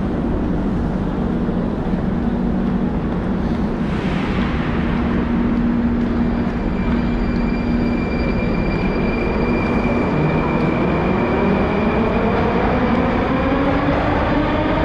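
Metro train in a station, a steady hum at first. From about ten seconds in its traction motors give a whine that rises in pitch as it pulls away and accelerates, over a steady wash of station noise.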